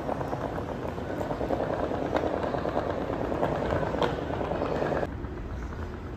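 Steady rumbling background noise of a large, empty subway station hall, with a few faint knocks. It drops suddenly to a quieter hush about five seconds in.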